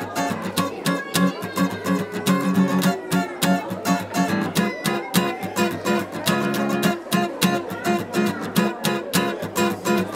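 Background music: a strummed acoustic guitar keeping a steady rhythm.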